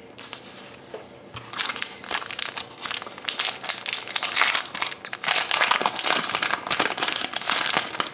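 Plastic wrapper of a hockey card pack crinkling and crackling as it is handled and opened. The crackling grows busier and louder partway through.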